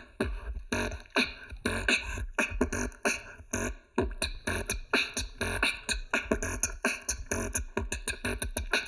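Beatboxing: a fast, dense run of percussive mouth sounds, sharp clicks and hits over deep bass kicks.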